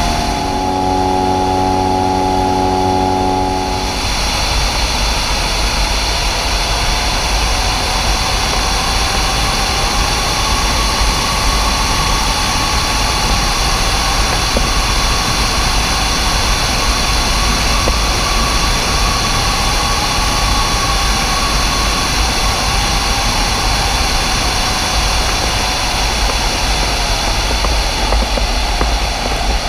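Ultralight trike's engine and pusher propeller in flight with heavy wind rush on the microphone. For the first few seconds the engine drone is steady; about four seconds in it gives way to louder wind noise with a fainter, wavering engine note as the trike descends to land on a grass strip.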